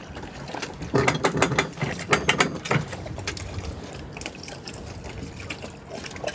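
Sailboat winch ratcheting as it is cranked: runs of sharp pawl clicks, loudest between about one and three seconds in, then fainter and sparser.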